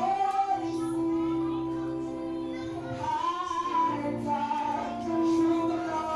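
Background music: a high singing voice holding long, sustained notes.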